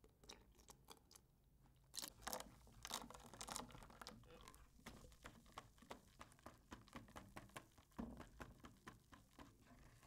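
Wire whisk stirring a thin egg-and-milk custard mixture in a stainless steel saucepan, its wires clicking and scraping rapidly against the pan. The sound is louder and busier for a second or two about two seconds in, as milk is poured in.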